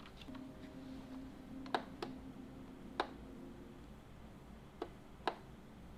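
Computer keyboard: about six single key presses, spaced irregularly, each a short sharp click, over a faint steady low hum that fades out about halfway through.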